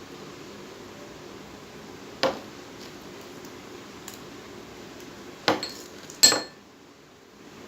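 A spoon knocks against a mixing bowl three times, once about two seconds in and twice near six seconds, the last knock the loudest, while chicken mince is being mixed with spices.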